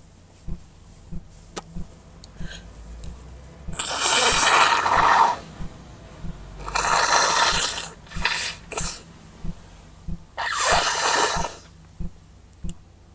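A person with a head cold blowing their congested nose hard: three long blows, with two short quick ones between the second and third.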